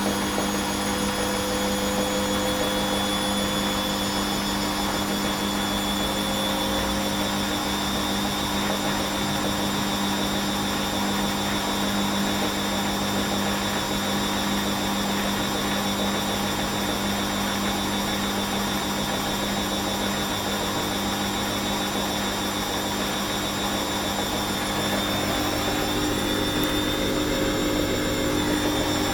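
Bosch WFL1611 front-loading washing machine spinning after the prewash: a steady motor whine over the hum of the drum turning at speed. The whine creeps up in pitch in the first few seconds, then holds steady.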